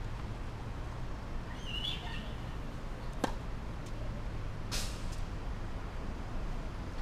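A tennis racket strikes a tennis ball once, a single sharp pop about three seconds in, followed about a second and a half later by a brief scuffing hiss. Under it runs a steady low background rumble.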